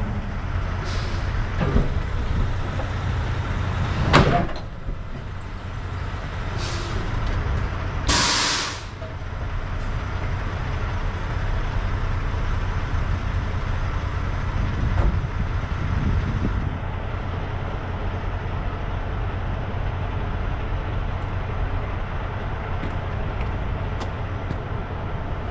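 Semi-truck's diesel engine idling steadily beside its trailer, with a loud metal clunk about four seconds in and a short hiss of air from the air brakes about eight seconds in, as the trailer's sliding tandem axles are set.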